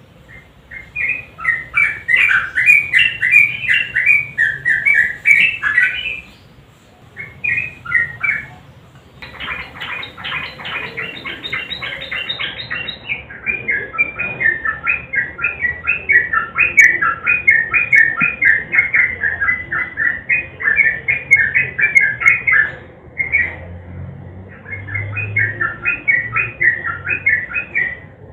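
Yellow-vented bulbul (trucukan) singing long runs of quick, bubbling chattering phrases, with a fast rattling trill about nine to thirteen seconds in and a couple of short pauses.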